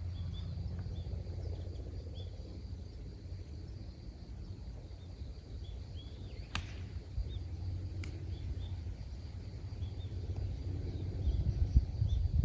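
Wind buffeting the microphone in a low rumble that grows stronger near the end, with small birds chirping throughout. Two sharp clicks come, the first about six and a half seconds in and the second about a second and a half later.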